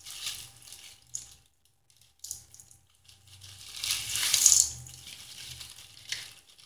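Plastic bag crinkling as it is shaken and crushed hard lollipop candy pours out of it into a stainless steel mixing bowl. The sound comes in bursts of rustling and pattering, loudest about four seconds in, with a short last burst near the end.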